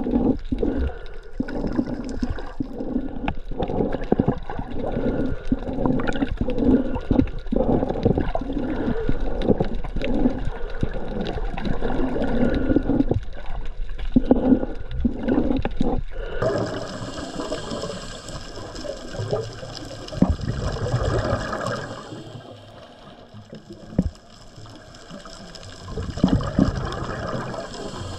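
Underwater water and bubble noise, uneven and surging in the first half. A little past halfway it changes suddenly to a hissier sound, which fades down and then surges again near the end.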